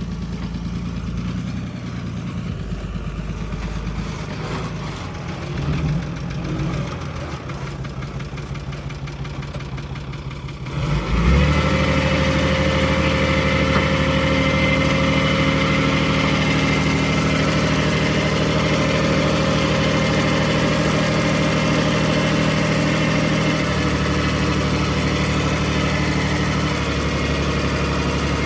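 Bulldozer's diesel engine running steadily at low revs, then about eleven seconds in it suddenly becomes louder and fuller and holds there at higher revs under work.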